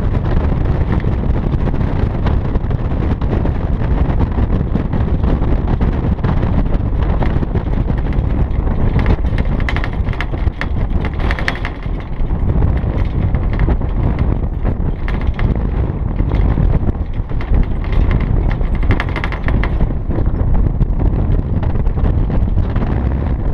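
Heavy wind buffeting a microphone mounted on the roof of a moving car, over the car's running noise.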